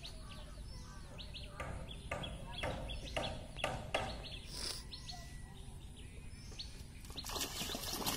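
Small birds chirping repeatedly, then about seven seconds in a hooked fish thrashing and splashing at the water's surface.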